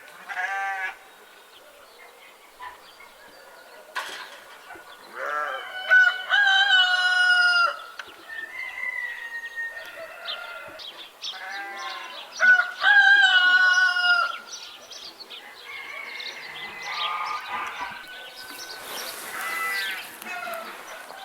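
Farmyard sound of livestock calling: two long, loud pitched calls about five and twelve seconds in, a short call right at the start, and quieter scattered calls in between.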